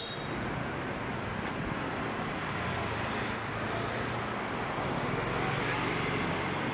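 Steady street traffic noise of passing vehicles, with a continuous low engine hum.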